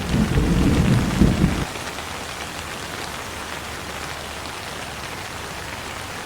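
Steady rain falling, with a low rumble of thunder that cuts off suddenly about a second and a half in, leaving the steady rain.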